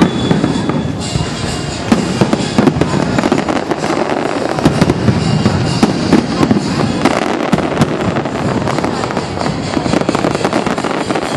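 Fireworks display: a dense, continuous run of bangs and crackling shells, with sharper booms about two and seven seconds in.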